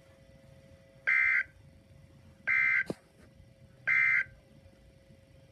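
Emergency Alert System end-of-message data bursts on NOAA Weather Radio: three short, identical bursts of buzzing two-tone digital data, about a second and a half apart, signalling that the alert broadcast is over. A faint steady hum runs underneath.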